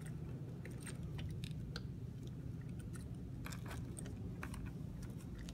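Faint, scattered light clicks and scrapes of metal parts being handled as a replacement universal joint is pushed into a hydraulic floor jack's pump housing and threaded in by hand, over a steady low background hum.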